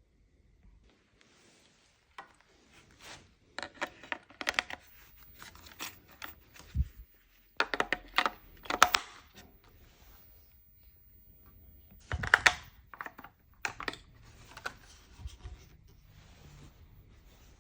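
Clicks, scrapes and rustles of a Sunforce solar security light's plastic housing being handled and opened by hand to get at its battery. They come in three main clusters, with a couple of brief low knocks and fainter rustling between them.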